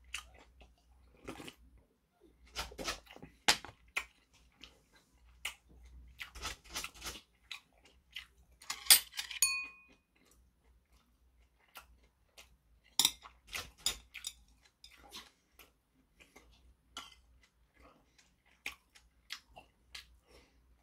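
A person eating close to the microphone: chewing, with scattered clicks of metal chopsticks and a spoon against ceramic bowls. One clink about nine seconds in rings out briefly.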